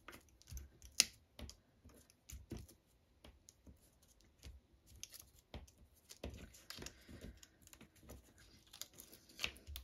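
Scattered light clicks, taps and paper rustles of hand crafting: adhesive foam dots being peeled from their sheet and pressed onto a paper card piece with a pick tool. The sharpest click comes about a second in.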